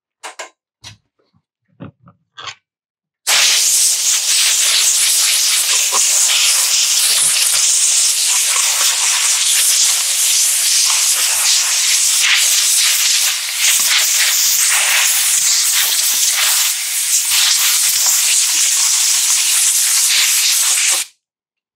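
Compressed-air blow gun hissing steadily as it blasts sawdust and grime off a chainsaw's removed side cover; it starts about three seconds in after a few light clicks and cuts off suddenly near the end.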